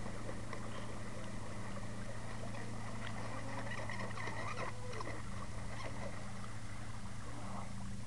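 Radio-controlled hydroplane boat's motor heard from across the lake as a thin, steady whine, loudest a little before the middle and fading somewhat about five seconds in.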